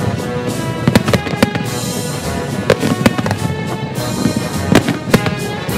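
Aerial fireworks shells going off in a quick, irregular series of bangs, over music with held tones.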